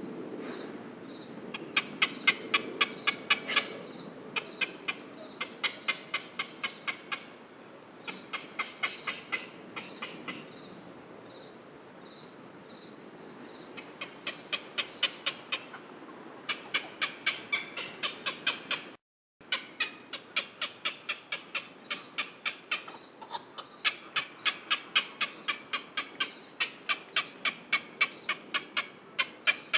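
Heron calling in bouts of rapid, repeated short calls, about four or five a second, separated by pauses, over a steady high background tone. The sound drops out completely for a moment about two-thirds of the way through.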